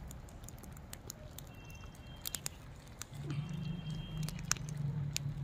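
Wood fire crackling, with scattered sharp pops and ticks at irregular intervals. A low steady hum comes in about three seconds in.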